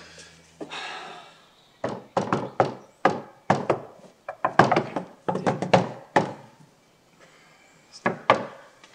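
A fist knocking on a front door: a long, uneven run of quick knocks lasting about four seconds, then two more knocks near the end.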